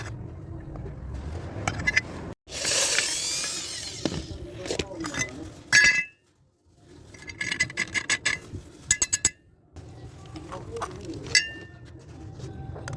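Metal parts and tools clinking and knocking, several strikes leaving short ringing tones, while a door lock is being fitted. About three seconds in, a loud harsh rushing noise lasts about two seconds, and the sound drops out abruptly twice.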